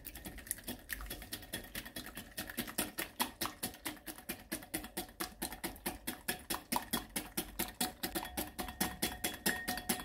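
Silicone-coated balloon whisk beating an egg in a glass bowl: quick, regular strokes, about five or six a second, each with a light tap and swish against the glass.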